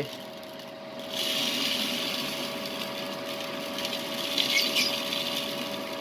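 Small electric fan of a homemade seed-winnowing machine running with a steady hum. From about a second in, bird seed pours through its funnel and falls inside, a dense, steady rattling hiss of grain while the fan blows the dirt and chaff away.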